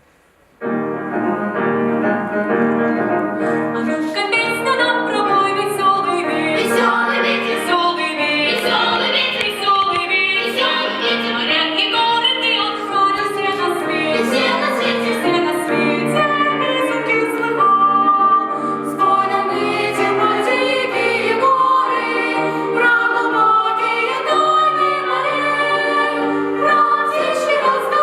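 Children's choir singing a song, starting abruptly about half a second in and carrying on at a steady level.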